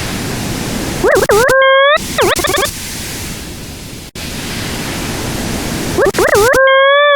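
Synthesized sound effects generated from graphs: a loud hiss of noise, cut by electronic tones that wobble and zigzag in pitch before settling. Near the end the noise stops and a steady buzzy electronic tone holds.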